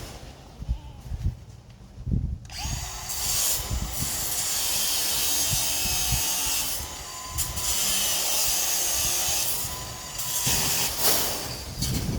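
A few knocks, then a power drill running in two long stretches of several seconds each with a short pause between, followed by more clattering near the end.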